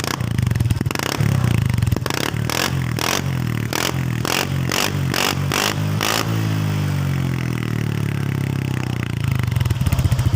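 Honda Click V2 scooter engine through an MT8 stainless-steel stock-elbow aftermarket exhaust, revved up from idle. A string of about a dozen sharp pops follows over roughly four seconds, then the engine winds back down to idle.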